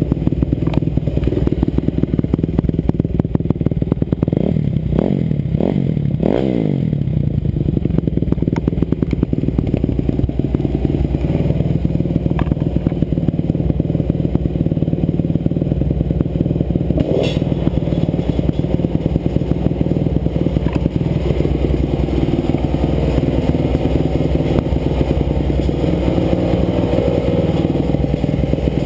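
2007 Kawasaki KX250F dirt bike's four-stroke single-cylinder engine idling, revved up and back down a couple of times about five seconds in, then settling to a steady idle.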